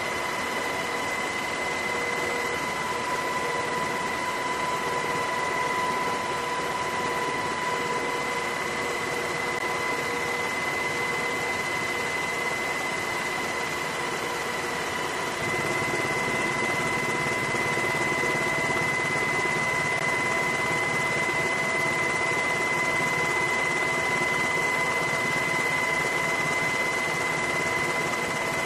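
Steady engine and rotor noise of a helicopter heard from inside its cabin, with a constant high whine over it. The low rumble gets slightly louder about halfway through.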